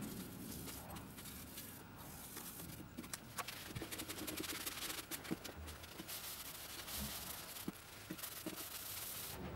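A rag rubbing over a faceted wooden bowl as dark finish is wiped on by gloved hands: a steady scuffing hiss scattered with small clicks.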